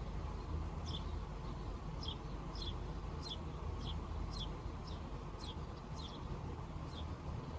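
A bird calling over and over: about ten short chirps, each sliding down in pitch, at uneven intervals, over a steady low rumble.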